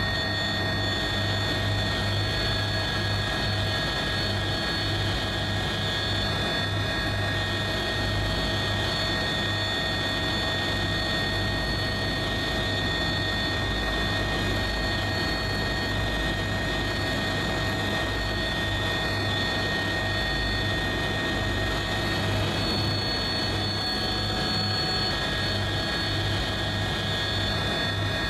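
A turbine helicopter in flight, heard from on board: a steady engine whine over a low, pulsing rotor throb.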